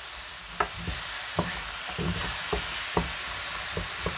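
Sliced mushrooms sizzling in a frying pan on high heat while being stirred, the utensil knocking against the pan about seven times.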